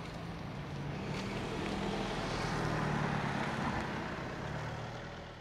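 A car moving slowly past close by: a low, steady engine hum with tyre and road noise that grows louder to a peak about three seconds in, then fades.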